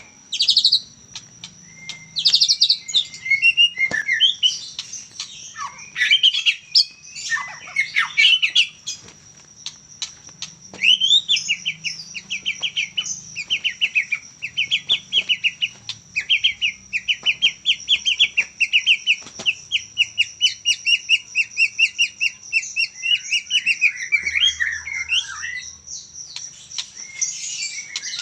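A young white-rumped shama (murai batu, Medan type), just past its spotted juvenile plumage, singing. It gives varied whistled phrases at first, then a long run of quickly repeated notes through the middle.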